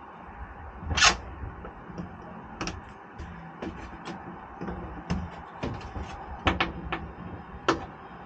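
Scattered sharp clicks and knocks of a hand tool and wiring being worked against the metal roof frame of a truck cap, the loudest knock about a second in. A steady low hum runs underneath.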